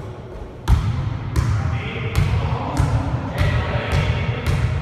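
A ball bounced repeatedly on a wooden sports-hall floor: about seven bounces starting under a second in, roughly one every two-thirds of a second, each with a short echo in the large hall.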